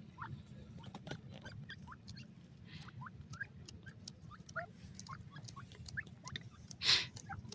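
Grey francolins foraging, giving many soft, short, rising peeps scattered throughout, with faint clicks and a low steady hum underneath. Near the end a short noisy burst is the loudest sound.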